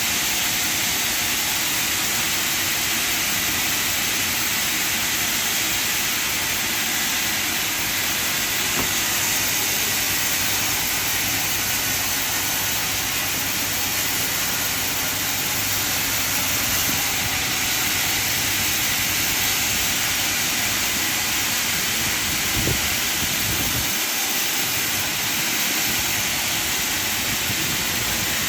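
Band sawmill running, a steady unbroken noise with a strong hiss in the upper range over a faint low machine hum.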